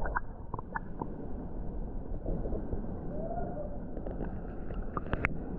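Muffled sound of a camera held underwater in a creek: a low rumble of moving water with scattered small clicks and bubble ticks.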